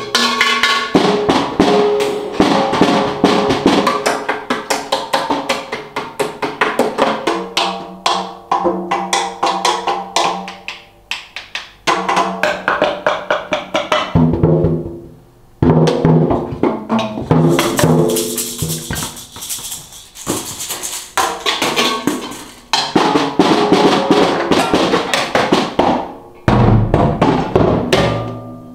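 Freestyle drum solo on a home drum set of snare and toms: fast, uneven runs of strikes with the drum heads ringing at a pitch, broken by a few short pauses. There is a brighter, hissing stretch around the middle.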